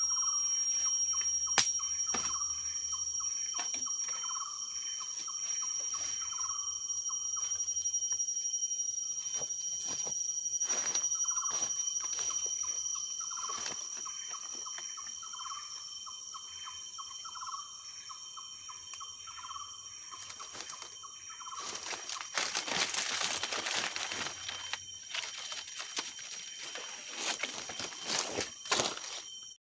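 Outdoor ambience: a steady high-pitched buzz, like insects, under a short call that repeats about once a second, with scattered clicks. From about two-thirds of the way in, a louder rustling or crackling noise takes over.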